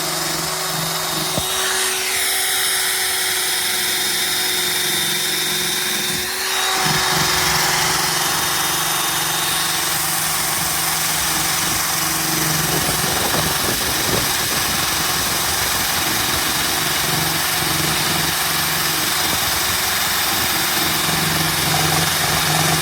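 Electric drill spinning a polishing pad on a plastic camera lens cover, running steadily with a motor whine; its pitch shifts for a few seconds near the start. It cuts off suddenly at the end.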